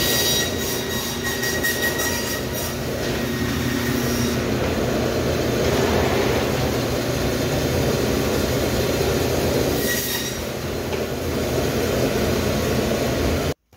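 Meat band saw running steadily while lamb rib racks are fed through it and cut into chops, the blade going through rib bone. A high ringing whine rises over the motor for the first couple of seconds and again briefly about ten seconds in. The sound cuts off suddenly near the end.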